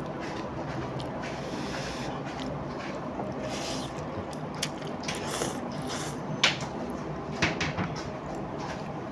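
A person slurping noodles, several short hissing sucks, the loudest about six and a half seconds in, over a steady background noise.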